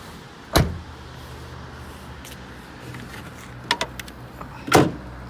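Car bonnet being opened: a sharp clunk about half a second in, a few quick clicks and a second loud clunk near the end, from the hood release and latch of a Mercedes ML 270 CDI. Underneath runs the steady low hum of its five-cylinder diesel idling.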